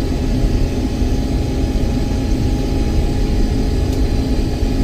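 Case IH 1680 combine running steadily at full throttle with the separator and feeder engaged while cutting soybeans, heard from inside the cab as a continuous machine drone with a steady hum.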